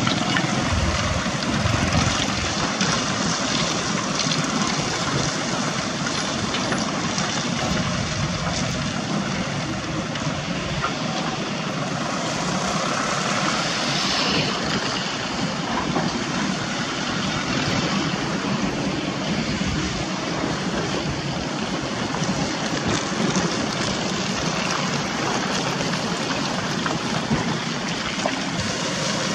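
Diesel engines of sand-laden light dump trucks running steadily as the trucks drive along a wet, muddy track, a continuous engine drone.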